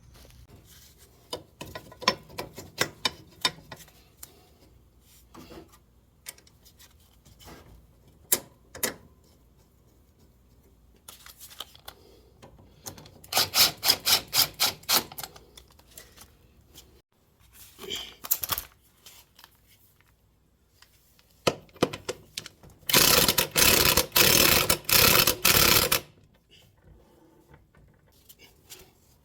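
Clinks and knocks of hand tools and metal parts while a scooter's rear wheel is refitted. Two runs of rapid clicking stand out: a short one about halfway through and a longer, louder one of about three seconds near the end.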